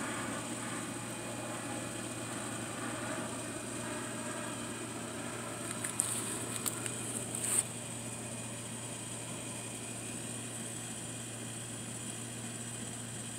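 A steady low mechanical hum, with a few brief clicks and rustles between about six and seven and a half seconds in.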